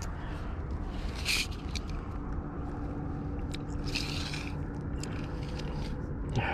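Scraping and rustling as a retractable tape measure is pulled out and laid along a fish on gravel, with two short sharp hissing scrapes, one about a second in and a longer one around four seconds, and scattered light clicks over a steady low rumble.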